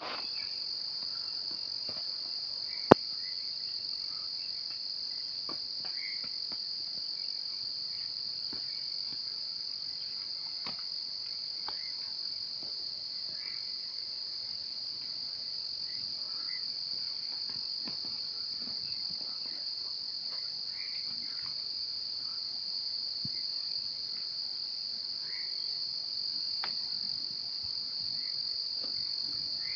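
Steady high-pitched insect chorus droning without a break, with faint short chirps scattered over it. A single sharp click about three seconds in.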